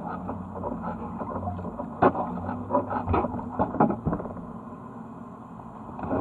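Kayak paddling: paddle blades dipping and splashing in the water, with irregular knocks and creaks from the paddles and the kayak.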